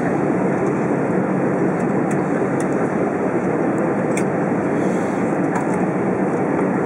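Cabin noise of an Airbus A320 taxiing: a steady rush from the engines at low power and the air conditioning, with a few faint ticks.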